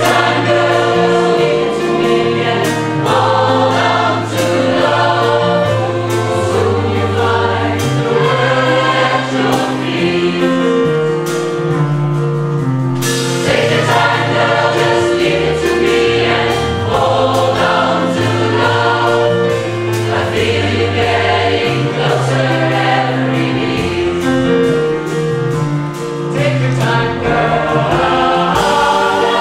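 Mixed choir of men and women singing a pop song, backed by a live drum kit and keyboard, with steady drum and cymbal strikes under held low notes.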